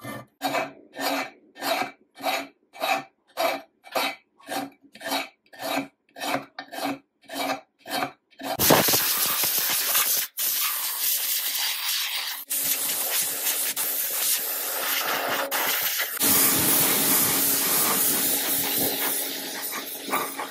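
A hand file rasping in even strokes, about two a second, on the rusty cast-iron head of an antique sewing machine. It is followed by continuous harsh scrubbing and hissing as the rusty frame is scoured with an abrasive pad and then spray-painted.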